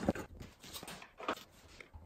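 Handling noise from taking apart a Makita cordless circular saw on a workbench: a sharp knock right at the start, then a few lighter clicks and taps of the plastic housing and a screwdriver, about every half second.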